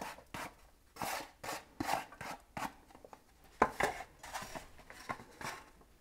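A metal spoon scraping and knocking in a cooking pot of tomato salsa with diced raw carrot and potato, in short, uneven strokes two or three a second, with a brief pause midway.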